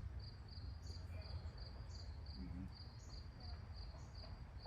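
An insect chirping steadily, about four high chirps a second, over a low steady rumble.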